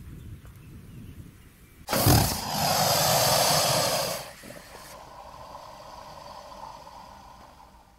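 Alligator bellowing: a low rumble, then a loud bellow that starts suddenly about two seconds in and lasts about two seconds, fading to a fainter call afterwards.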